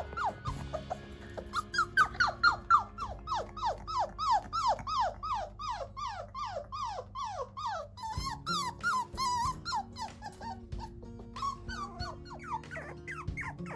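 Eight-week-old cockapoo puppy crying in its crate on its first night: a fast run of high whining cries, each falling in pitch, about three a second, then shorter, higher yelps that die down briefly and pick up again near the end. Quiet background music plays underneath.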